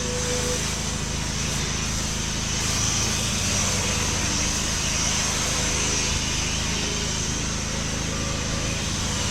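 Pressure-washer engine running at a steady speed while water sprays from the lance, giving a constant hiss over the engine's hum.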